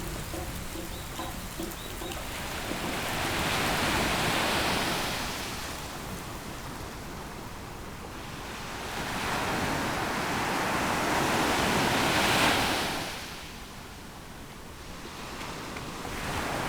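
Ocean waves surging and receding in slow swells: two big surges about four and twelve seconds in, with the second falling away abruptly, and a third building near the end.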